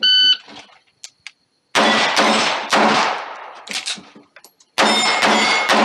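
Electronic shot timer's start beep, then, after about a second and a half, pistol shots fired in quick runs, with steel target plates ringing as they are hit.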